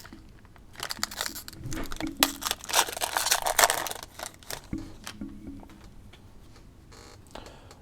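A 2021 Mosaic baseball hobby pack's wrapper is torn open and crinkled in irregular bursts over the first few seconds. After that come quieter rustles and clicks of the cards being handled.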